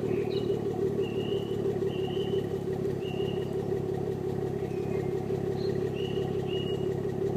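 Vehicle engine idling with a steady, rapid, even pulse, which the owner suspects of misfiring.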